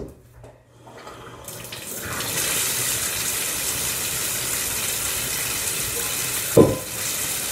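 Bathtub faucet turned on about a second and a half in, the water then running steadily. There is a short, louder sound about six and a half seconds in.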